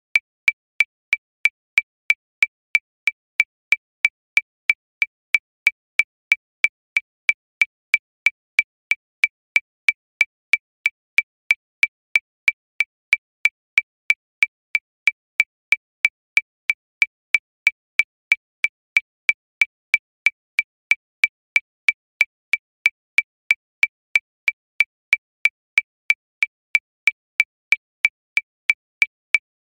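Metronome clicking steadily at 185 beats per minute: about three short, evenly spaced clicks a second, each with a high, bright ping.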